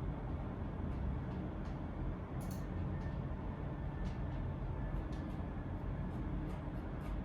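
Steady low room rumble, with faint scattered clicks and taps over it, including a short cluster of clicks about two and a half seconds in.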